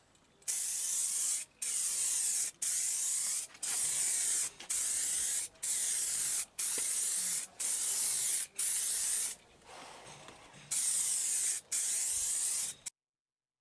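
Aerosol spray can laying clear coat onto a crash helmet in short passes: about a dozen hissing bursts of roughly a second each, separated by brief pauses, with a longer pause before the last two, then cutting off suddenly.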